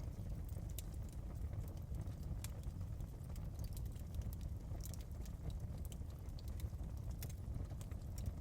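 Fire in a fireplace crackling: irregular sharp pops and snaps scattered over a steady low rumble of the flames.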